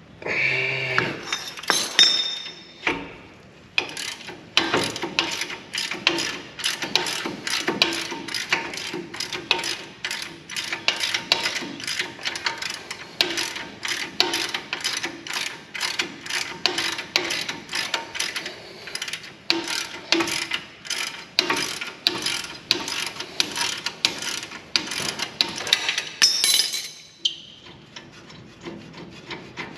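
Hand ratchet wrench clicking steadily, about two to three clicks a second, on brake caliper hardware. A louder clatter of metal parts comes in the first few seconds and again near the end.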